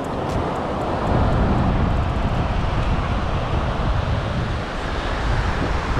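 Wind buffeting the microphone over the rush of breaking surf, a steady roar that grows louder about a second in.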